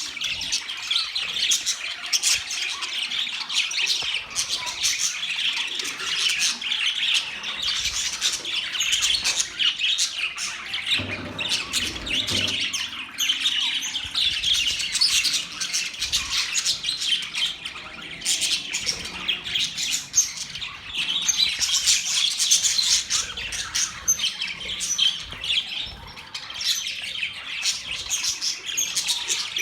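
A flock of budgerigars chattering nonstop, a dense mix of chirps and squawks with no pauses.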